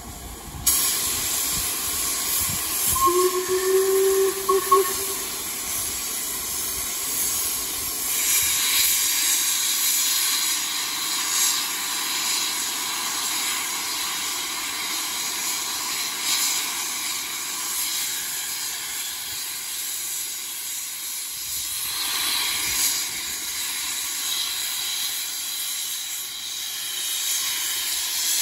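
LMS Black 5 4-6-0 steam locomotive starting away. A loud steady hiss of steam from its open cylinder drain cocks cuts in about a second in and carries on throughout. Its whistle sounds once, about three seconds in, for roughly two seconds.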